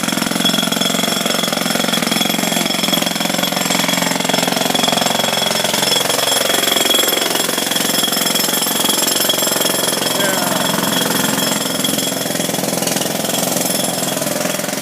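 Jackhammer hammering continuously, very loud, with a dense steady rattle that does not let up.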